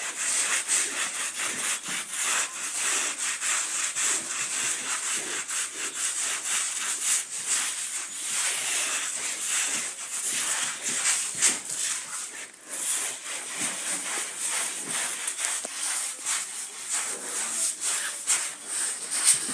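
Wet, soapy carpet being scrubbed by hand, a steady run of quick back-and-forth scrubbing strokes.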